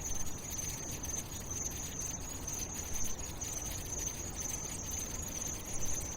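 A steady high-pitched buzzing whine, like crickets chirring, held at one pitch over a faint low rumble and hiss.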